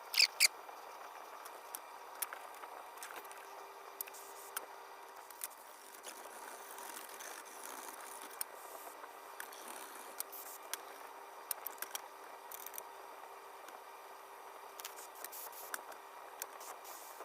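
Light clicks and scrapes of small metal lantern burner parts being handled, scattered at irregular moments over a faint steady hiss.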